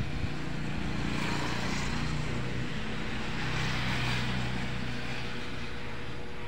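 A motorcycle engine passing by on the road. It grows louder to a peak about four seconds in, then fades.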